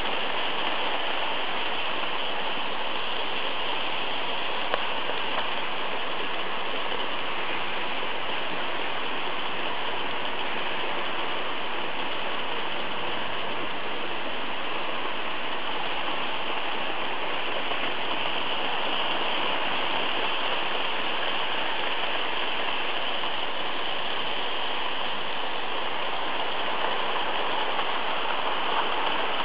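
Märklin HO model trains running on the track: the steady rolling rush of wheels and motors, with no pauses.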